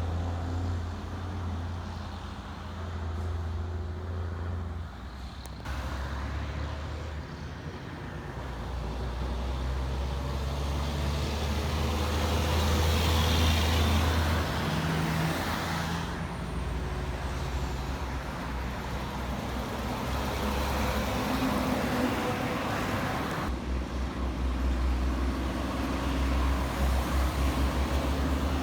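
Road traffic passing a roadside, mostly trucks: a steady low engine rumble, with passing vehicles' engine and tyre noise swelling loudest around the middle and again past two-thirds of the way.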